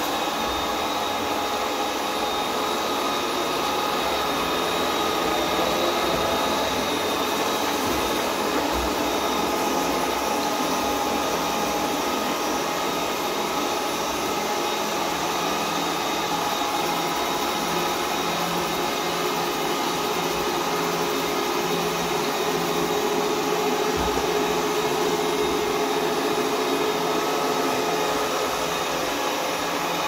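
Ecovacs Deebot 901 robot vacuum cleaner running steadily while it cleans, a continuous whir of its suction fan and brushes with a faint whine, working normally.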